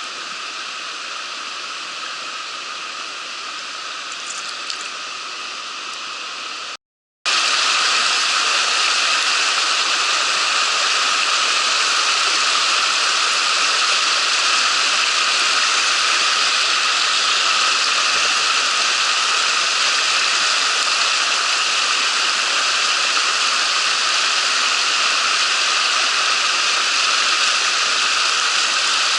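Mountain stream water rushing steadily. About seven seconds in the sound cuts out for a moment and comes back louder.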